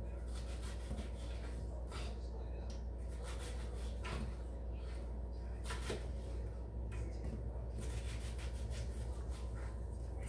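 Knife slicing on a cutting board: irregular taps and knocks of the blade on the board, some in quick runs, over a steady low hum.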